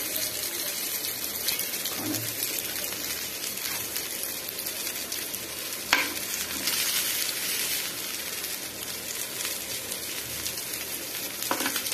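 Tandoori chicken drumsticks sizzling steadily in a hot grill pan, with a sharp knock of a spatula against the pan about halfway through and a lighter one near the end.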